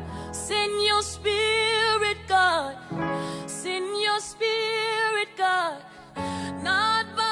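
Music: a song with a woman singing long, wavering held notes in phrases over a soft, sustained low accompaniment.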